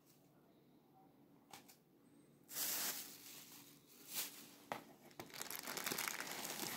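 Plastic packaging crinkling and rustling as hands handle wrapped items in a cardboard box: a few short rustles, then steady crinkling from about five seconds in.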